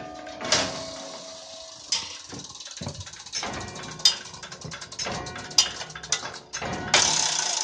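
Turret clock movement clicking and clanking: sharp metallic knocks a second or two apart over a low clatter of its gear train, then a fast, even mechanical clatter starting near the end.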